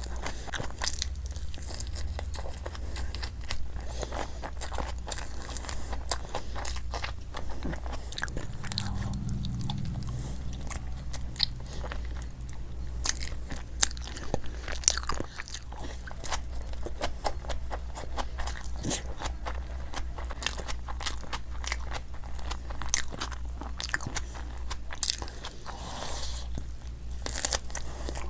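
Close-miked eating of crunchy fried Indian snacks: repeated crisp bites and crunching chews, with a steady low hum underneath.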